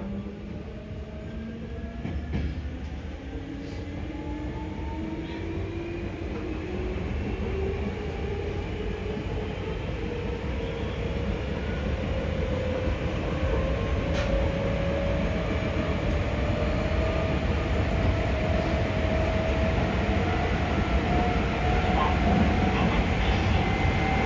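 Running sound of a resistor-controlled Hankyu 5300 series electric train, heard from inside the car. The traction motor whine rises steadily in pitch as the train accelerates, over a rumble of wheels on rail that grows louder.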